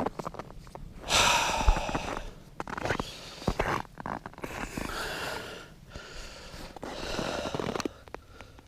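A person breathing hard, with three long, noisy exhalations about three seconds apart and small handling clicks in between.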